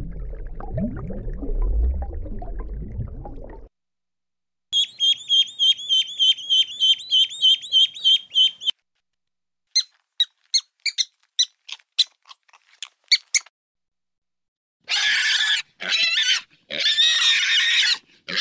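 A low underwater rumble, then a rapid run of high chirps at about four a second, then a scatter of short clicks, and near the end young pigs squealing in three loud bursts.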